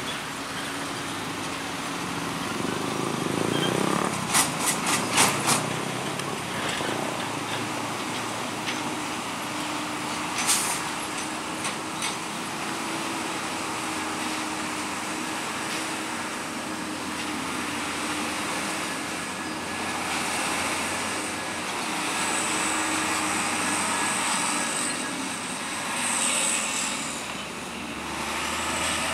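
Heavy diesel trucks driving over a railway level crossing: engines running over steady road noise, with a quick run of about five sharp knocks about four to five seconds in and single knocks around ten and twelve seconds, as wheels go over the rails. A high hiss comes in during the later part.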